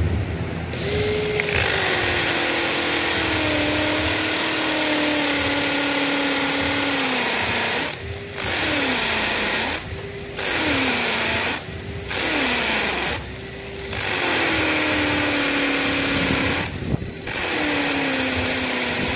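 Bauer cordless drill boring anchor holes into a concrete floor. It runs in one long burst of about seven seconds, then in five shorter bursts with brief stops between them. Its motor whine starts higher and sags in pitch after each start, over a harsh grinding hiss from the bit in the concrete.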